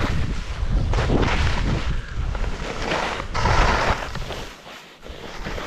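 Wind buffeting the microphone over the hiss and scrape of skis turning on chopped-up snow, the scraping swelling with each turn and easing off briefly near the end.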